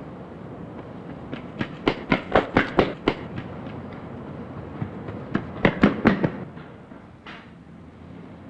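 Running footsteps: a quick series of sharp footfalls in two bursts, about four a second, over a steady background hiss.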